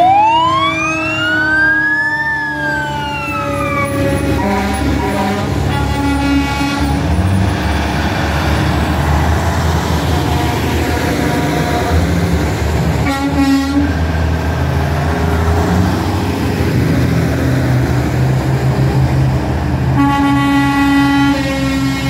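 Fire engine siren rising once and falling away over the first few seconds, over the steady low rumble of passing diesel trucks. Truck air horns blow several times, again near the end.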